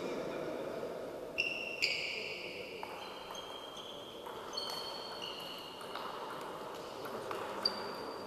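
Table tennis rally: the celluloid ball clicking off the bats and the table in a string of sharp hits, several of them leaving a high ringing ping.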